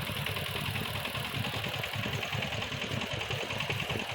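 A small engine running steadily at idle with a rapid, even beat.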